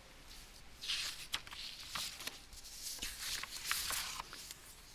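Loose sheets of paper rustling and being turned over on a desk, in short crisp bursts with a few sharp crackles.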